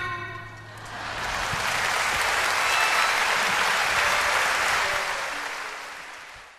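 The song's last notes ring out and die away, then audience applause swells, holds for a few seconds and fades out.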